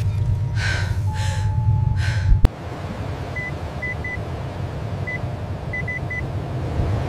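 Three short hissing rushes of air over a low rumble, ending in a sharp click: air escaping through a needle that decompresses a tension pneumothorax. Then a patient monitor gives short high beeps at uneven intervals over the quieter rumble.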